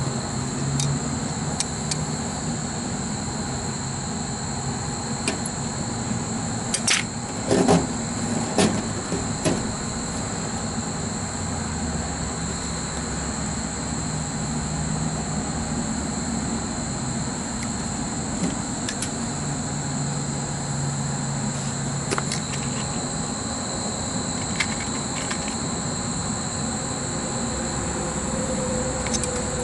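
Insects trilling steadily over a low, even rumble, with a short run of sharp clicks and rattles about eight seconds in as wires and a tool are handled at the contactor terminals.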